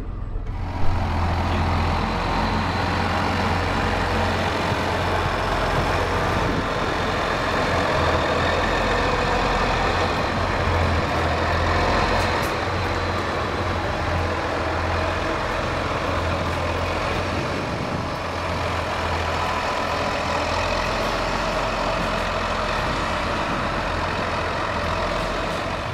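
John Deere 7810 tractor's six-cylinder diesel engine running steadily with a deep engine note, with a brief knock about a second in.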